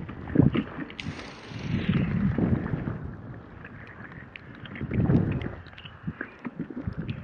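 Wind buffeting the microphone in uneven gusts while a fat bike is ridden through snow, with scattered small clicks in the last couple of seconds.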